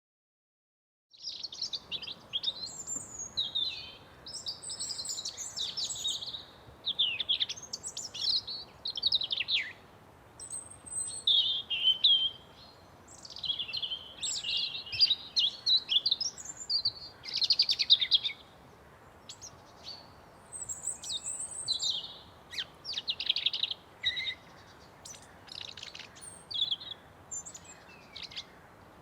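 Birds singing and chirping, a busy mix of short calls and trills, over a faint steady outdoor background. It starts abruptly about a second in, after silence.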